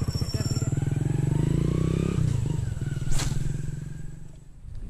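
Motorcycle engine running with a steady rapid pulse, its pitch dipping slightly about halfway through, then fading away near the end. A single sharp click about three seconds in.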